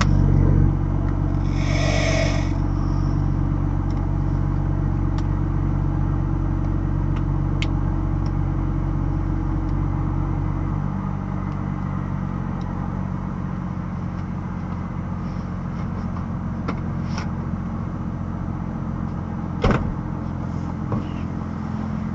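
Cabin of a 2018 BMW M2 with its turbocharged straight-six running steadily, the engine hum dropping lower about halfway through. A short screeching burst comes about two seconds in and a single sharp crack near the end.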